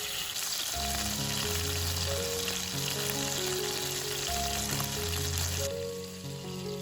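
Food sizzling as it fries in a pan, under background music. The sizzle starts just after the beginning and cuts off suddenly about a second before the end, leaving the music.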